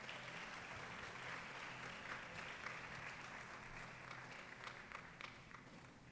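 Audience applauding: a round of clapping that thins out to a few separate claps and stops near the end.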